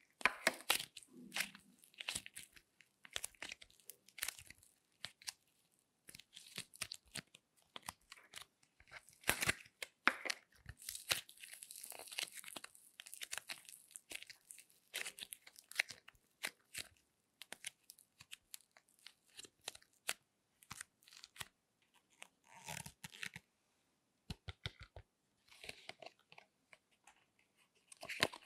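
Soft clay being pulled apart and squeezed by hand, giving irregular crackly tearing sounds and scattered small clicks.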